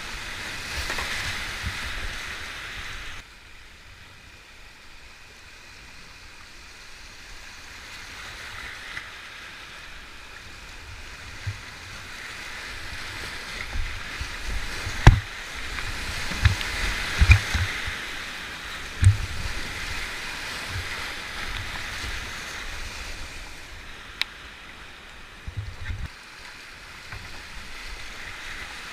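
Whitewater rushing over rocky drops in a steep creek rapid, heard close up from a kayak running it. The rush dips for a few seconds near the start and swells again, with scattered low thumps, the sharpest about halfway through.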